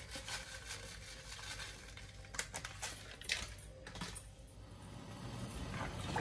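A foil spice packet being shaken and tapped empty over a steel pot, making light crinkling and scattered small clicks that thin out after about four seconds.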